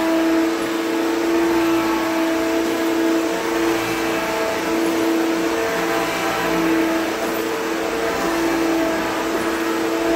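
Self-propelled 'Power Drive' upright vacuum cleaner running, a steady motor whine with a few clear tones, its loudness rising and falling slightly as it is worked over the floor.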